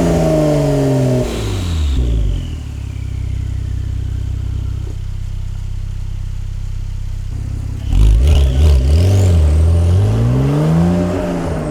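Porsche 992.1 Targa GTS twin-turbo flat-six through a custom titanium valved exhaust with high-flow catalytic converters: revs falling away, then a steady low note. About eight seconds in it gets loud, the pitch climbing and then dropping back near the end.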